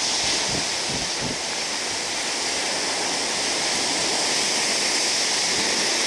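Steady rush of the open sea heard from a moving ship, a constant hiss of water, with wind gusting on the microphone in about the first second and a half.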